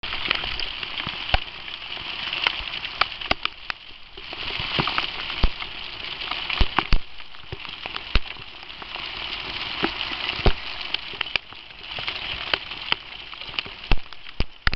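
Hail storm: a steady hiss of falling hail and rain, with many sharp, irregular clicks of hailstones striking hard surfaces.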